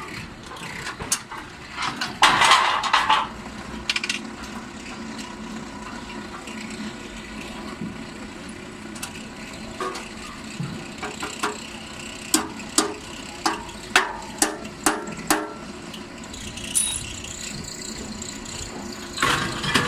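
Aluminium formwork being worked: metal clattering and knocking, with a louder clatter a couple of seconds in and a run of about seven sharp knocks, roughly two a second, in the second half.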